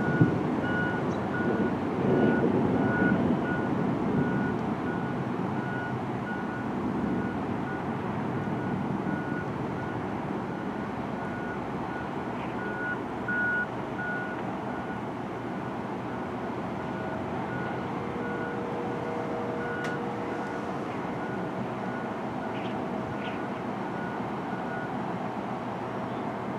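Vehicle reversing alarm beeping, one high tone about twice a second, which stops near the end. Under it runs the steady hiss of rain, with the rumble of thunder fading over the first few seconds.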